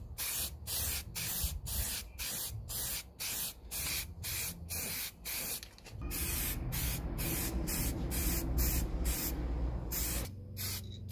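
Aerosol can of rapid-dry spray primer hissing in short bursts, about two a second, as primer is sprayed onto a plastic motorcycle fairing, with a brief pause near the end.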